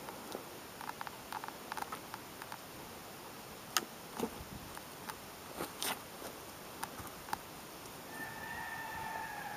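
Deer hide being pulled and peeled off the hanging carcass by hand: scattered small crackles and clicks as the skin separates from the body, with a sharper click about four seconds in and a short rustling burst around six seconds. A faint steady whistling tone comes in near the end.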